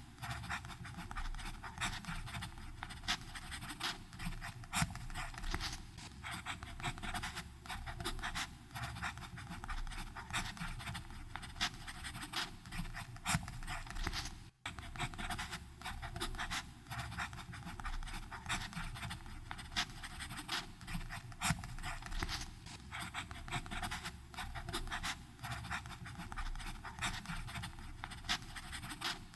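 Fountain pen nib scratching on paper in continuous writing strokes, many short scratches in quick succession. It stops for an instant about halfway through.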